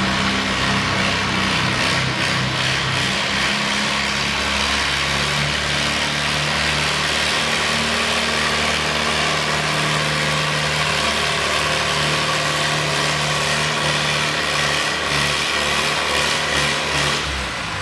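Antique Farmall tractor's engine working hard under steady load as it pulls a weight-transfer sled, its note holding fairly even throughout and easing off shortly before the end.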